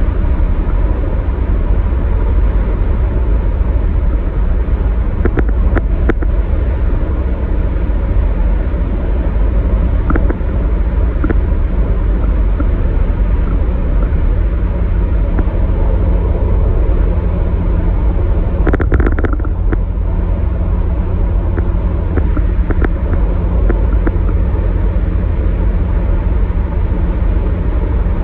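Steady road and tyre noise of a car at highway speed, heard inside the cabin as a continuous low rumble, with a couple of brief knocks about five seconds and about nineteen seconds in.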